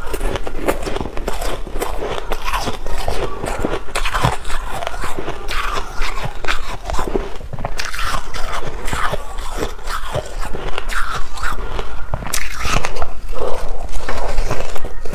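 Close-miked crunching and chewing of shaved ice: a dense run of quick, irregular crunches as mouthfuls of soft frozen ice are bitten and chewed.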